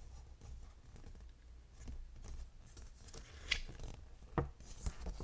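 A few faint, short clicks from keys being pressed on the Elecfox Inky75 aluminium mechanical keyboard, the two clearest about three and a half and four and a half seconds in, over quiet room tone.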